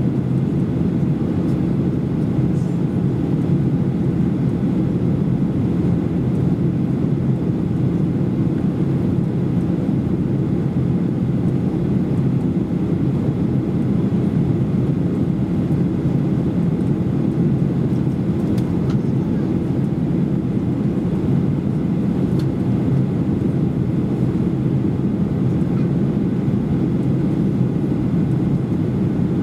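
Steady low drone of a Boeing 737-800 in flight, engine and airflow noise heard from a window seat inside the cabin.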